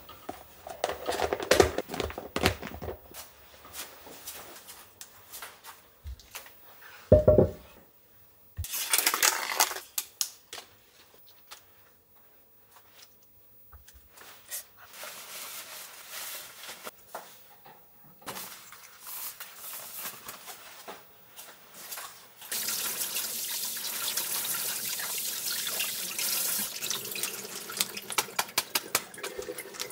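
Kitchen tap running, its spray splashing over a whole pineapple being rinsed in the sink for the last several seconds. Before that, scattered handling knocks and rustles, with one loud low thump about seven seconds in.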